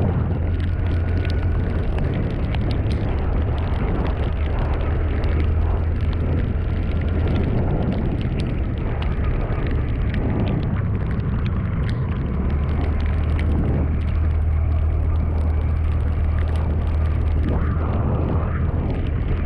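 Steady engine and road noise of a moving vehicle, its low engine note shifting a little lower about twelve seconds in.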